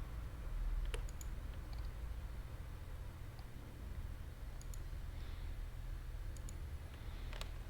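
Scattered single clicks of a computer mouse, some in quick pairs, over a low steady hum.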